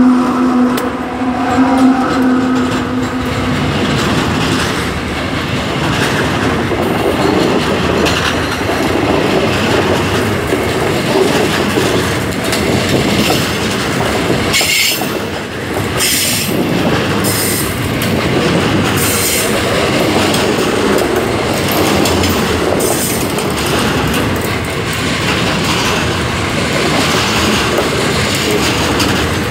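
Freight train hopper wagons rolling past close by: a steady rumble of steel wheels on rail with clickety-clack over the rail joints, and high wheel squeals several times around the middle. A droning tone from the passing diesel locomotives fades out in the first few seconds.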